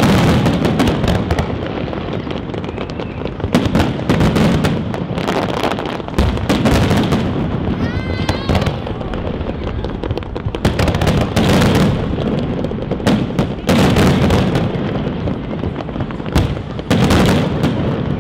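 Fireworks display: a continuous run of shell bursts and dense crackling, swelling into loud clusters of bangs every two to three seconds, with a few short rising whistles near the middle.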